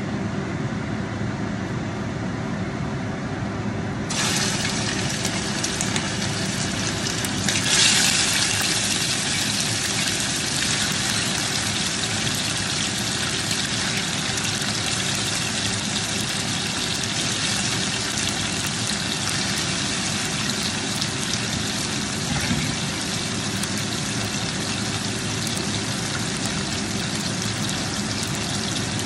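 Pork rib pieces sizzling in hot oil in a frying pan. The sizzle starts suddenly about four seconds in, jumps louder about eight seconds in as more meat goes in, then holds steady.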